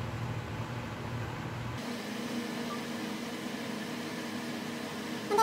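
Steady background hum with no speech. About two seconds in its tone changes abruptly and it carries on at a slightly higher pitch.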